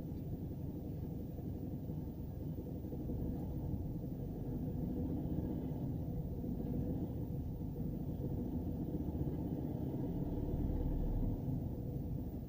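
Cabin sound of a car with a 1.4 TSI (CAXA, 122 hp) turbocharged four-cylinder petrol engine: a steady low rumble. The deepest part of the rumble swells from about three seconds in and drops off sharply near the end. The owner recorded it as carrying an extraneous noise.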